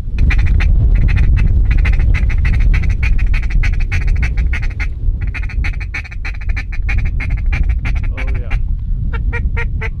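A fast, rapid run of duck quacks, many per second, with short breaks about five and nine seconds in. Under it is a heavy wind rumble on the microphone.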